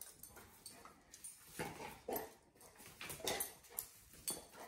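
Excited dog whimpering in a string of short whines, about two a second, with some movement on a hardwood floor.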